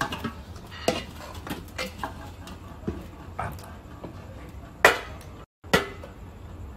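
Metal utensils and cookware clinking and knocking against pots and dishes in a series of separate sharp clinks, the loudest about five seconds in.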